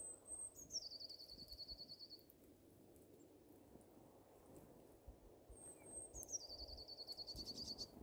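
Blue tit singing twice, faintly. Each song is two thin, very high notes followed by a quick, even trill a little lower, about two seconds long.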